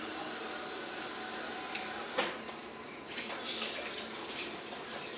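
Plastic Play-Doh toys being handled: scattered light clicks and knocks over a steady hiss, growing busier from about two seconds in.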